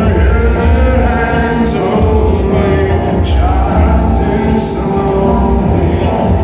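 Rock band playing live and loud: a male voice singing over electric guitars, heavy bass and drums.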